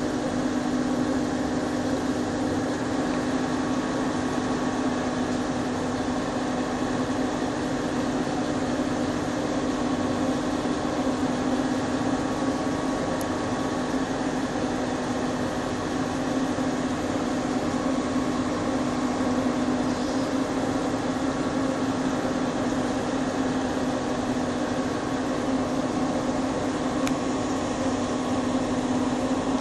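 Aerial tramway (téléphérique) in motion: a steady, unbroken mechanical drone with a strong low hum.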